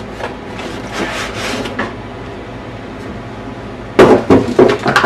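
Quiet handling noises, then a loud burst of knocks and clatter about four seconds in, as hard items and packaging are handled and set down on a work surface.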